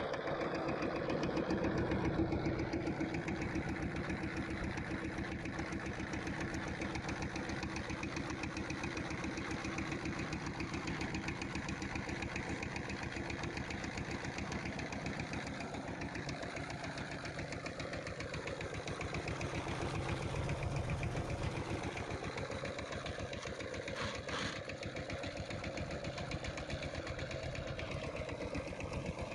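Single-cylinder diesel engine of a two-wheel power tiller idling steadily, with a fast, even knock from its firing strokes.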